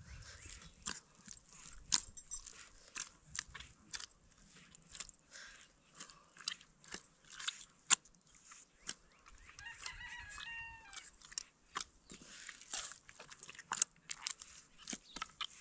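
Hand kneading dough in a metal pot: irregular soft clicks and scrapes of the hand working the dough against the pot. A chicken calls once, about ten seconds in.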